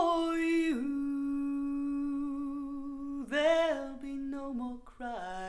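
A woman's voice singing long wordless notes: one note held for about two and a half seconds, then two shorter phrases, with no other instrument audible, played back over hi-fi loudspeakers in a small room.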